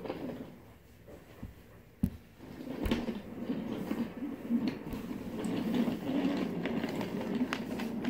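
LEGO toy train running along its track as it approaches, a rumble that grows louder about two and a half seconds in, with a couple of sharp clicks just before.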